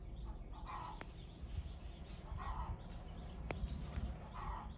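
Faint bird calls, one every couple of seconds, over a low steady rumble, with two sharp clicks about two and a half seconds apart.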